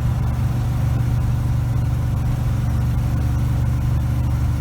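Ford F600 truck cruising down the road with a small load of corn, its engine and road noise a steady low drone.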